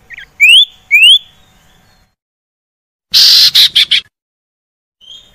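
Common iora calls: two rising whistles about half a second apart, then after a short pause a harsh, rasping chatter lasting about a second.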